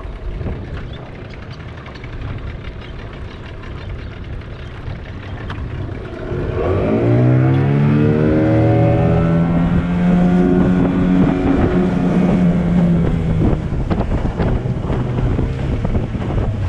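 Boat's outboard motor revving up about six seconds in, its pitch rising and holding high for several seconds before easing off, over steady wind and water noise.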